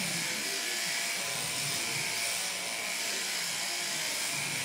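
Sheep-shearing machine handpiece, driven from an overhead shearing plant, running steadily as its cutter slides back and forth over the comb through a lamb's fleece.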